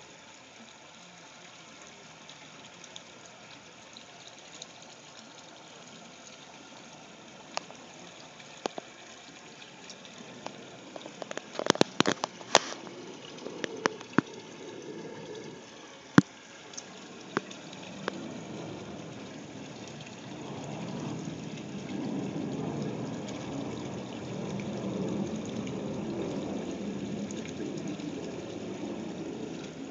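Water running in an aquarium setup: a steady noise that grows louder over the second half, with a few sharp clicks and knocks around twelve and sixteen seconds in.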